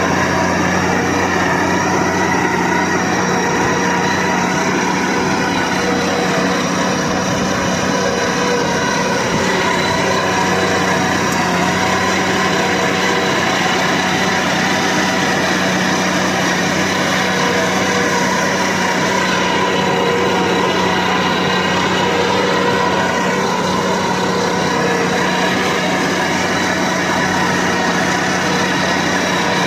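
Valmet tractor's diesel engine running steadily under load while pulling a land plane across a field.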